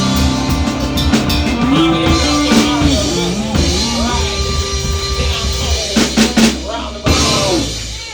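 Live rock band with a drum kit playing the closing bars of a song: a few hard drum hits near the end, then a last chord ringing out and fading.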